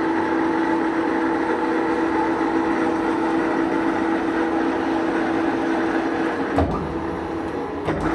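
Takang 17x80 engine lathe running with its chuck off, the spindle speed set at what is believed to be 885 rpm: a steady mechanical whine. About six and a half seconds in there is a brief knock, and the whine drops out for over a second before it comes back.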